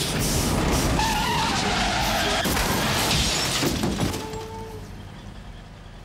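A car crash: tyres skidding and a loud collision, a dense jumble of noise that lasts about four seconds and then fades away.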